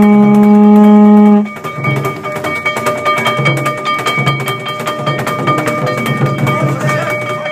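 Yamakasa festival music: a loud held note, then a busy mix of low drumbeats and steady ringing tones.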